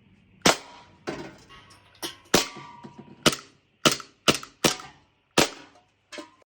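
Double Bell Glock G19 Gen4 green gas gel blaster pistol firing about ten sharp shots at an irregular pace, the last one fainter.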